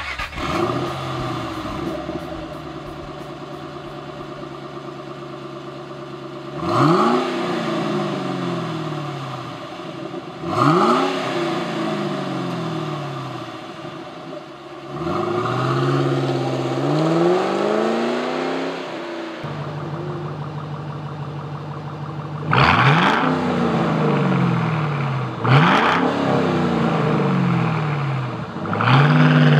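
Ford Mustang GT 4.6-litre V8 idling and revved in quick throttle blips, one held for a few seconds, first through the stock exhaust. About two-thirds of the way through, the sound switches to the same engine through the Flowmaster Outlaw Series axle-back mufflers: a louder idle and three more sharp revs.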